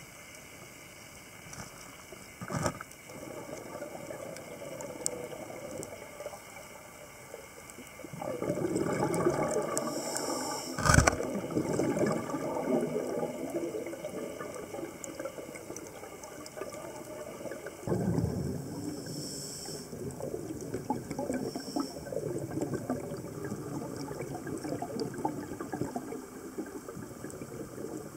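A scuba diver's exhaled regulator bubbles burbling underwater, in two long bouts starting about eight and eighteen seconds in. A sharp click about eleven seconds in is the loudest moment.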